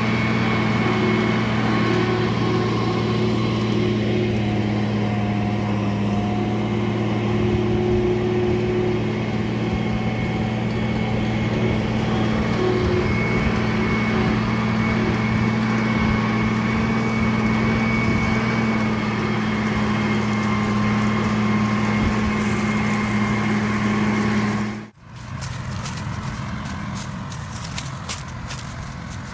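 Combine harvester running steadily while harvesting corn: a constant engine hum with a few faint higher whining tones. About 25 seconds in it cuts off abruptly, giving way to a quieter rumble with crackling.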